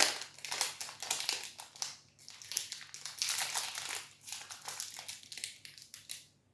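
Plastic wrapper of a Grenade protein bar crinkling and rustling as it is torn open and peeled back, in quick irregular crackles that stop just before the end.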